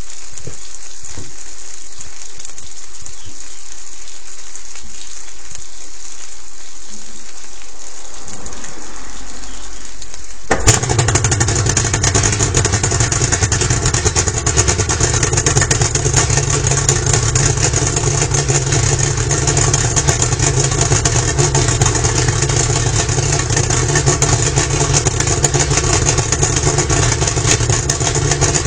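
A steady hiss of water running through the flushing kit, then about ten seconds in the Yamaha V-Max 225 two-stroke V6 outboard fires at once and settles into a steady idle, running on flushing water out of the water.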